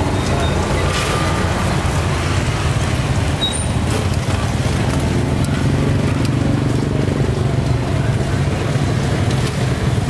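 Steady low rumble of street traffic, with motor vehicles running nearby.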